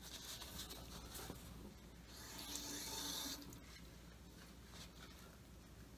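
Faint rubbing and rustling of a tissue, with a louder hissing stretch of about a second a little after two seconds in.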